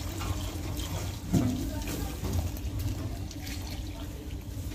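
Cream thinned with whole milk pouring from a bowl onto sliced raw potatoes in a stainless steel pot, a steady splashing pour of thick liquid.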